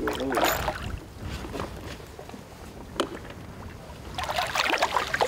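Water lapping against a boat's hull as a landing net is held in the water, with a single sharp click about three seconds in. Splashing builds near the end as a hooked fish is brought to the net.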